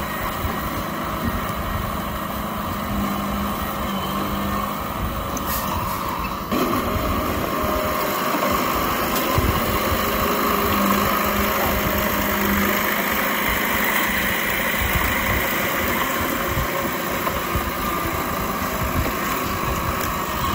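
Diesel engine of an old Komatsu D31P crawler bulldozer running steadily as it pushes soil. The sound changes abruptly about six and a half seconds in.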